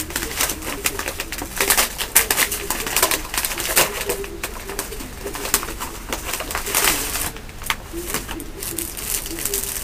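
Paper padded envelope and plastic wrapping crinkling and rustling as a Kindle is pulled out and handled, in many irregular bursts. A bird calls in the background with a low, repeated call.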